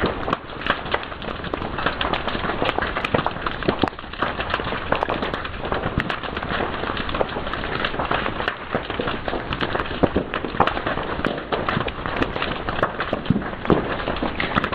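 Wood fire crackling steadily, with a dense hiss and many sharp pops and snaps following one another closely.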